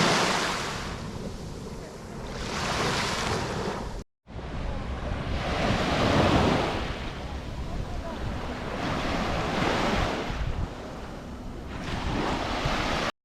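Sea waves breaking and washing up on a shore, swelling and fading every few seconds, with wind buffeting the microphone. The sound cuts out for a moment about four seconds in.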